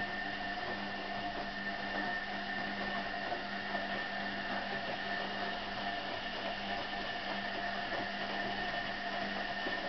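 Hoover A3308 washing machine running steadily, a continuous hum with a high, even whine over it.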